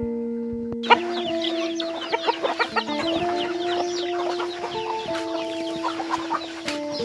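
A flock of chickens, roosters, hens and small chicks, clucking and cheeping in many quick high chirps as they crowd in to be fed, starting about a second in. Guitar music plays underneath.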